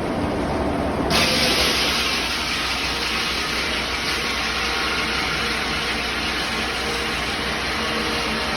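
Sawmill machinery running steadily with an engine-like rumble. About a second in, a loud hiss starts suddenly and holds steady.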